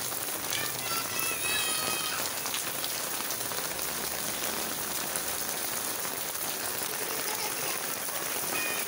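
Steady rain falling on a wet paved alley.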